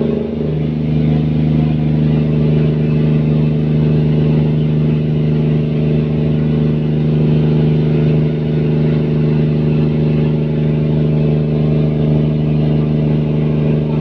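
Fishing boat's engine running steadily at an even pitch, heard on board.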